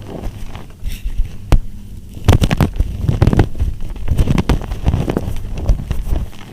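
Bar of soap being crushed: one sharp crack about one and a half seconds in, then a dense run of crunching crackles lasting about four seconds.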